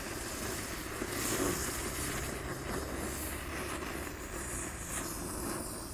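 Three-colour ground spinner fireworks burning and spinning inside a hole in the ground, giving a steady rushing hiss.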